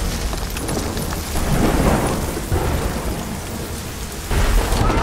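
Heavy rain pouring in a thunderstorm, with thunder rumbling and a sudden loud low crack of thunder about four seconds in.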